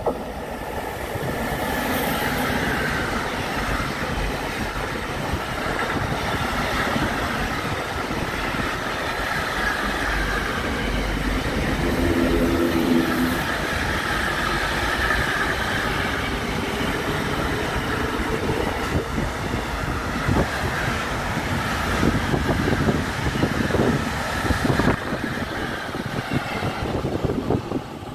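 Container freight train behind an electric locomotive passing at speed: a steady rush of steel wheels on rail, with sharp clacks of the wagon wheels over rail joints in the second half. It drops away right at the end as the last wagons go by.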